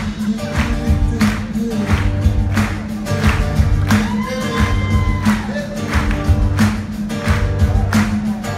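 Live rock band with drums, bass and acoustic guitar playing a steady beat, with a male voice singing held notes over it about halfway through.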